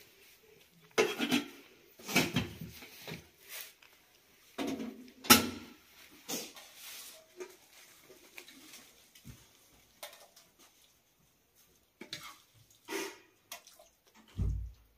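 Aluminium cooking pots being handled, clanking and knocking at irregular moments, the loudest about five seconds in. Near the end a metal spoon scrapes food out of a pot onto a steel tray, and something lands with a low thump.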